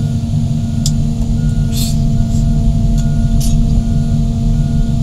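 Large tracked excavators' diesel engines running steadily under load, a deep constant drone, with three short hisses about one, two and three and a half seconds in.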